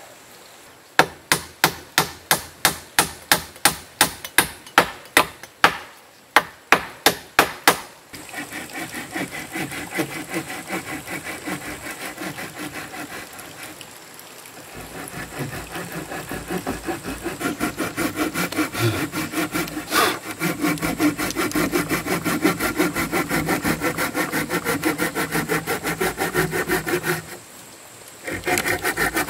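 Hand tools working timber: first a run of sharp hammer blows on wooden framing, about three a second, with a short break. Then about a second later, rapid rasping strokes of a folding hand saw cutting through a wooden plank, easing briefly midway and stopping shortly before the end.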